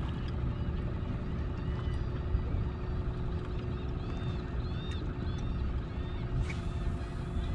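Boat's outboard motor idling steadily under a low rumble of wind on the microphone.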